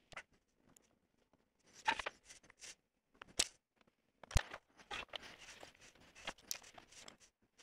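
A steel rule and an aluminium plate being moved and set down on a wooden workbench: scattered scrapes and light metal clatters, with one sharper knock a little past four seconds in.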